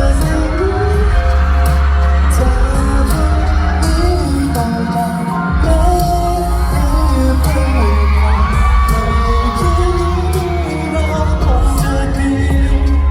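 Live pop music: a singer over a backing track with heavy bass, which drops out for about a second around halfway before returning.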